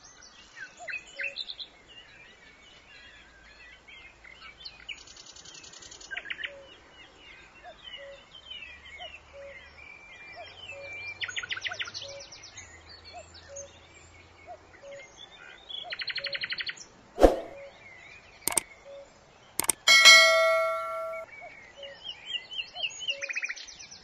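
Bird ambience: many small birds chirping, with several rapid trills and a soft low note repeating steadily underneath. About three-quarters of the way through come three sharp clicks, then a loud ringing ding.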